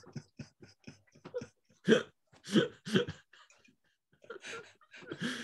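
Men laughing in a run of short, breathy bursts, the loudest about two to three seconds in.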